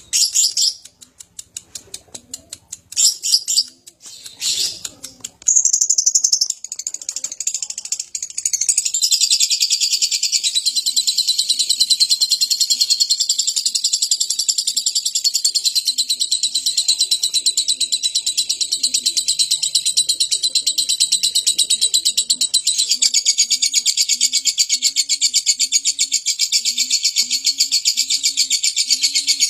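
Lovebird giving a few short chirps, then from about eight seconds in a long, unbroken, rapid high-pitched chattering trill: the lovebird's 'ngekek panjang', the long chatter that keepers prize.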